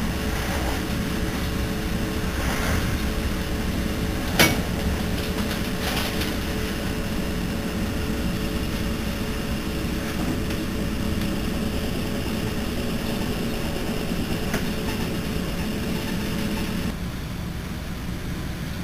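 Steady rumble and hum of an NJ Transit Multilevel cab car running at speed, heard from inside the car. A single sharp knock comes about four seconds in, a couple of fainter ones follow, and the hiss eases slightly near the end.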